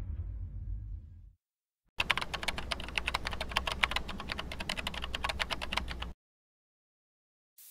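Rapid computer-keyboard typing clicks, a sound effect running for about four seconds as text types out on screen. Before it a low rumble fades out within the first second or so, and music with sustained notes starts right at the end.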